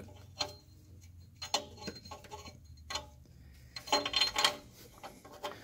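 Scattered light clicks and taps of a gloved hand and tools working at an exhaust oxygen sensor on a catalytic converter, with a burst of heavy breathing close to the microphone about four seconds in.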